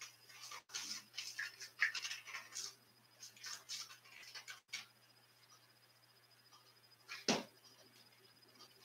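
Paintbrush bristles scratching and scrubbing across a canvas board in short strokes, then a single sharp tap about seven seconds in.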